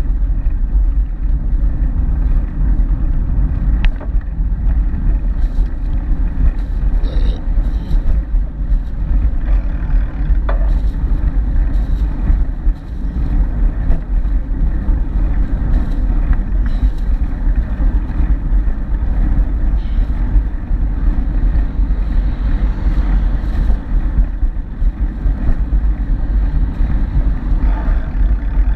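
Wind buffeting the microphone of an action camera carried on a moving bike ride, a steady low rumble.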